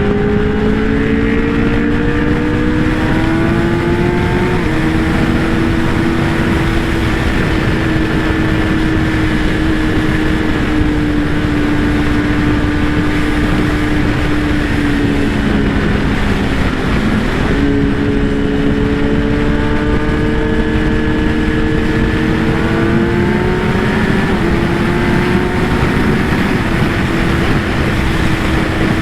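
Kawasaki ZX-10R's inline-four engine and exhaust under way at speed, with heavy wind noise. The engine note climbs for the first few seconds and drops at a gear change about five seconds in, then sags slowly, jumps up sharply a little past halfway, climbs again and drops at another shift near the end.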